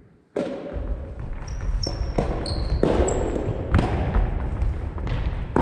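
Soft tennis rally in a gymnasium: sharp hits of the soft rubber ball off rackets and the floor, mixed with a few short, high squeaks of sneakers on the wooden court, all echoing in the large hall. It starts after a brief moment of silence.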